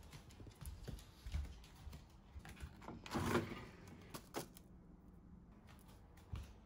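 Freezer ice drawer sliding open, a loud rushing sweep about three seconds in. Scattered light clicks and knocks come before it, and a few sharp clicks follow just after four seconds.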